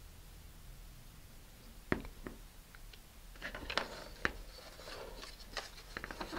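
Hands handling a model rocket's balsa rotor blade and body tube on a cutting mat while a glued balsa wedge is pressed into place: two sharp taps about two seconds in, then a run of light clicks and rubbing.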